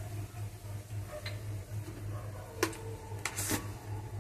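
Thick tomato-chilli masala paste cooking in a kadhai, with a few scattered pops and spits from the bubbling paste over a steady low hum.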